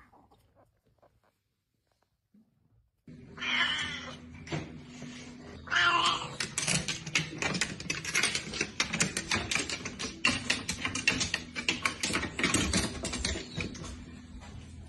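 A cat meows about three seconds in and again a couple of seconds later. A dense run of quick taps and knocks follows: the cat's paws on wooden wall-ladder rungs as it climbs.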